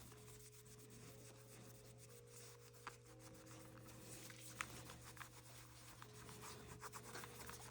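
Faint rubbing of a rag wiping a lighter-fluid-wet Zippo lighter case, with a couple of light ticks.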